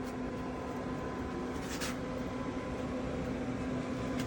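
Steady mechanical hum with a few fixed tones from a running Pit Boss pellet smoker, its fan blowing and feeding the fire.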